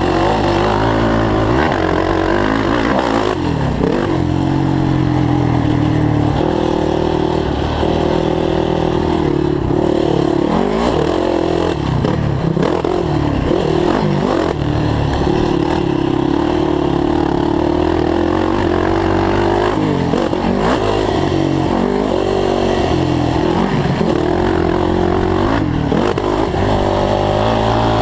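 2007 Yamaha YFZ450 quad's single-cylinder four-stroke engine running hard on a dirt track. It is heard close up from the onboard camera, its pitch dropping and climbing again every few seconds as the throttle is closed and reopened.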